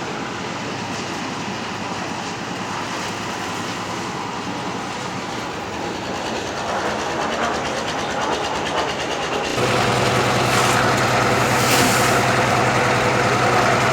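Concrete mixer running with a steady rattling clatter. About two-thirds of the way through, the sound jumps louder and a steady engine hum comes in.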